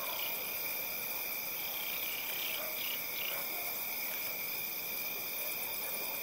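Night ambience of crickets trilling in a steady, unbroken chorus, with a few faint short calls from other animals about two to three and a half seconds in.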